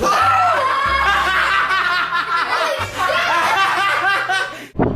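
People laughing and snickering over music with a steady bass line, cut off abruptly near the end.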